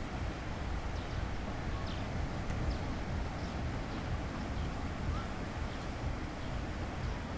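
Seashore ambience: the steady wash of sea waves, with wind rumbling on the microphone and a few faint, distant voices.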